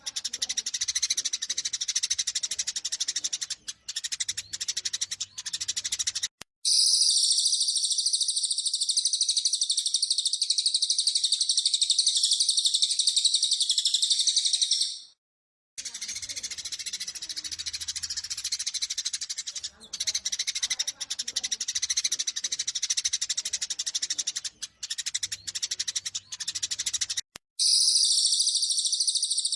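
Eurasian tree sparrows chirping in a fast, excited fighting call. Twice this switches abruptly to a spell of unbroken, dense high-pitched chatter from another small bird, as in a spliced bird-song training recording.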